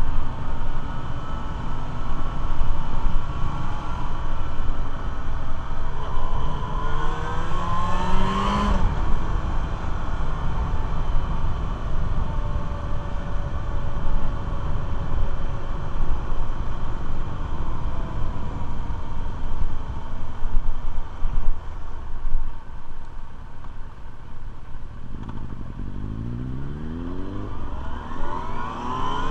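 Motorcycle engine running under way, with wind noise on the microphone. The engine note rises as the bike accelerates about seven seconds in, and again near the end.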